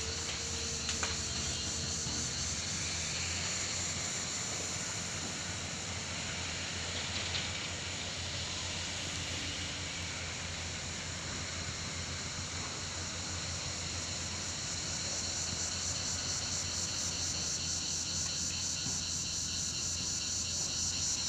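Excavator's diesel engine running steadily with a low hum, under a continuous high-pitched buzz of insects.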